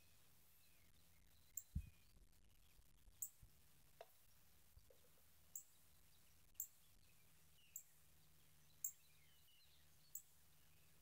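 A bird giving short, sharp, high chip notes about once a second, with faint birdsong behind. There is a dull thump near two seconds in.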